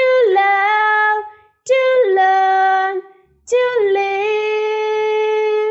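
A girl singing solo and unaccompanied: three held notes, each starting a step higher and dropping, the last held for about two seconds.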